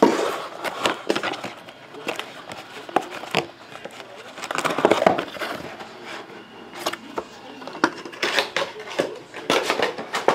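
Cardboard trading-card hobby box being handled and opened by hand: rustling and scraping of the cardboard and wrapping, with several sharp knocks as the box and its two inner boxes are set down on the table.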